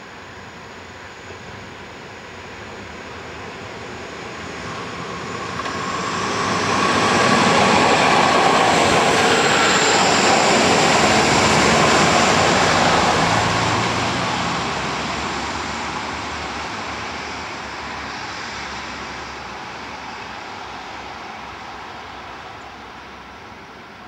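AKN diesel railcar passing close by: the running noise grows over several seconds, is loudest for a few seconds in the middle, then fades slowly as the train moves away.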